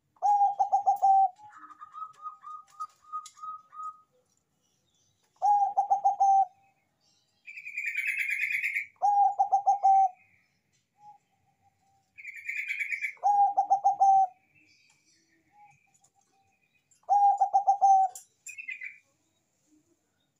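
Bangkok-strain zebra dove (perkutut) singing: a loud, rapidly pulsed cooing phrase about a second long, given five times a few seconds apart. A quicker run of higher notes comes near the start, and shorter, higher, harsher calls fall between some of the phrases.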